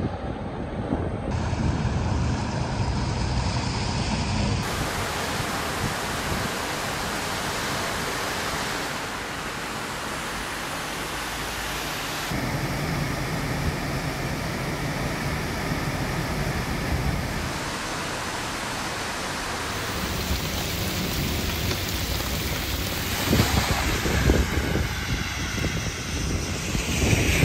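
Outdoor field sound of flooding in a run of short clips: wind buffeting the microphone over rushing water, with cars splashing through standing floodwater. The sound changes abruptly at each cut, and strong gusts hit the microphone near the end.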